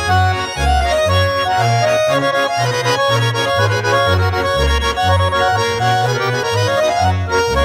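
Background music: an accordion folk tune with a quick melody over a bouncing bass that alternates about twice a second.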